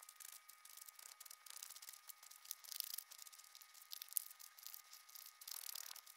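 Faint scraping and crackling of soil being dug out of a raised garden bed, with a faint steady high whine behind it.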